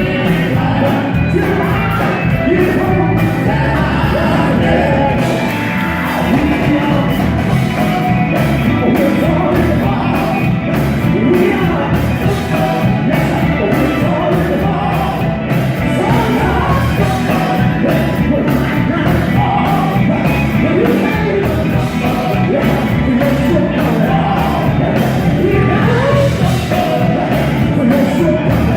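Live gospel quartet music: singers with shouted lead passages over a band with a steady beat, in a large reverberant hall.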